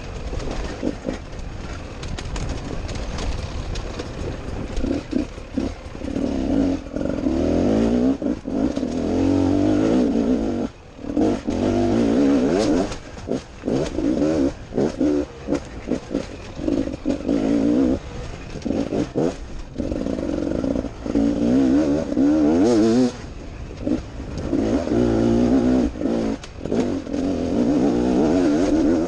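Dirt bike engine revving up and falling back over and over, with many short drops where the throttle is cut or a gear is shifted, heard close up from a helmet camera while riding.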